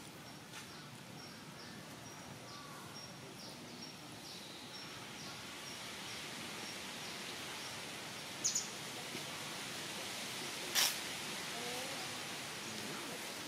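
Outdoor ambience with a steady hiss and a bird repeating a short high chirp about twice a second, which stops about seven seconds in. Two sharp clicks come later, the second and louder one near the end.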